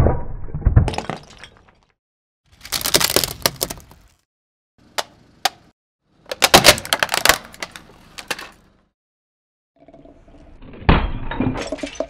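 Objects cracking and crunching under a slowly rolling car tyre: four separate bursts of crackling a second or two long, with two sharp snaps about five seconds in.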